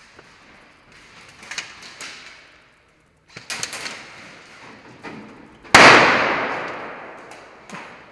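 Airsoft gunfire: short clusters of sharp cracks, then about six seconds in a single loud bang that rings on in the large indoor hall and dies away over about two seconds.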